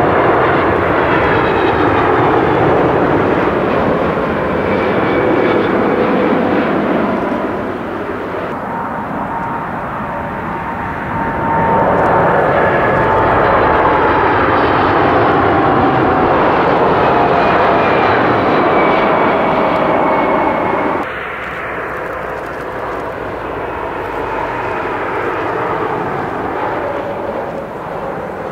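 Jet airliners passing low on landing approach, engine noise with slowly falling whine tones. First comes a Boeing 777. About eight seconds in, a cut brings a louder four-engine Boeing 747-400. About 21 seconds in, another cut brings a quieter three-engine Dassault Falcon 7X business jet.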